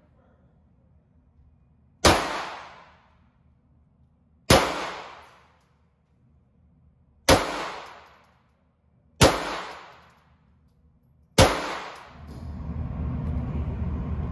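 Five single shots from a .22 LR firearm, fired roughly two to three seconds apart, each one echoing for about a second. After the last shot a steady low rumble rises and holds.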